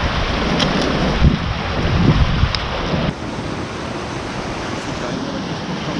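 Surf washing over rocks and kelp, with wind buffeting the microphone; the wind rumble drops away suddenly about three seconds in.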